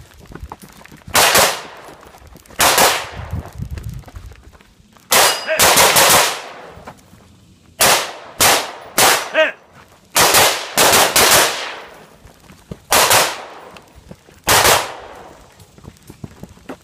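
Pistol shots fired close by at a rapid match pace, about fifteen in all: single shots, pairs and quick strings of three or four, separated by short pauses. Each shot has a brief ringing tail.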